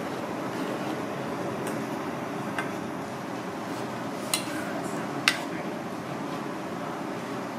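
Battered razor fish pieces deep-frying in oil in a small aluminium saucepan, a steady sizzle, while a metal ladle clicks against the pan a few times, loudest about five seconds in.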